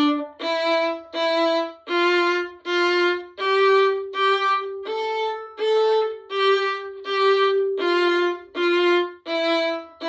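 Solo violin playing a warm-up scale in separate bow strokes, each note played twice, stepping up a few notes and then back down.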